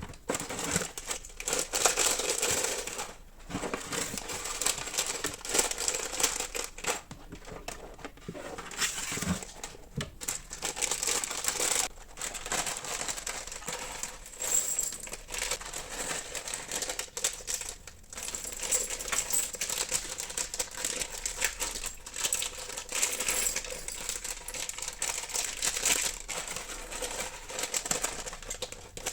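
Tiny LOZ plastic mini bricks clicking and clattering while being handled, with crinkling of plastic packaging.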